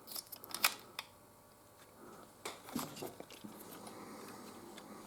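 Faint scattered clicks and taps of hard plastic Lego pieces being handled, a few in the first second and a cluster of them about halfway through.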